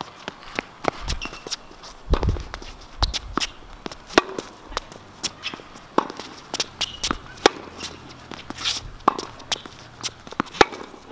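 Tennis rally on a hard court: irregular sharp knocks of the ball struck by rackets and bouncing on the court, mixed with the players' quick footsteps and shoe scuffs.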